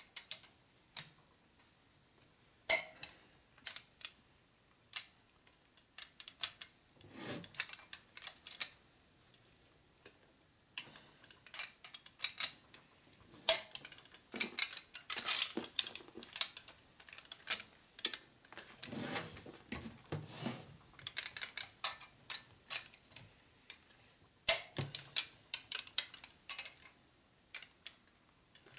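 Ratcheting torque wrench clicking in short irregular runs as cylinder-head bolts are snugged down, the first torque pass at 30 in a tightening sequence.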